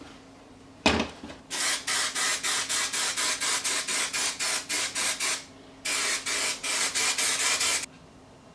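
A single thump, then two runs of rapid, even rubbing strokes on a surface, about four a second, with a short break between them.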